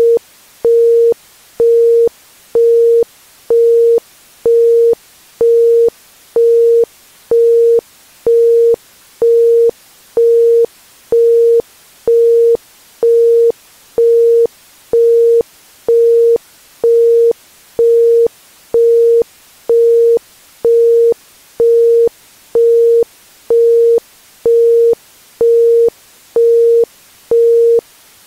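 Isochronic tone: a steady 465 Hz pure tone switched on and off about once a second, a 1.05 Hz pulse, with a faint hiss between the pulses.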